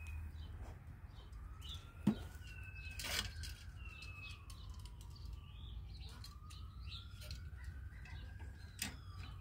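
Faint birds chirping in the background over a low steady hum, with a few light clicks from something being handled, about two and three seconds in and again near the end.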